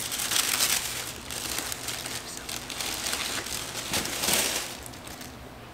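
Paper packaging crinkling and rustling as hands dig into a box to unpack a pair of sneakers, loudest about four seconds in, then dying down near the end.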